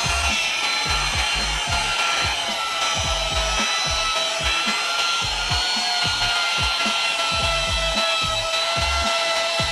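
Small electric power tool running steadily with a slightly wavering whine, its bit or brush rubbing against a part, over background music with a steady beat.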